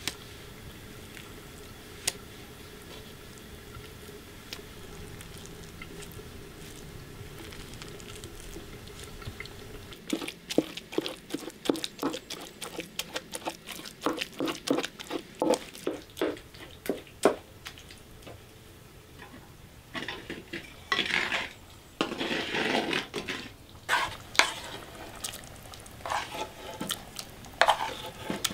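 A wooden pestle pounding and mashing cooked pumpkin in an earthenware dish, about three knocks a second, starting about a third of the way in. A couple of clicks of a metal spoon against the clay come first, over a low steady hum. Longer scraping strokes follow in the last third as the mash is scraped across the clay dish with a wooden spoon.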